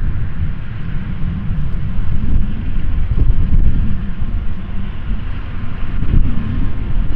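Wind buffeting the microphone in a loud, uneven rumble, over a steady hiss and low rumble from steam locomotive CN 2141, a 1912 Canadian Locomotive Company engine, idling or creeping toward the platform.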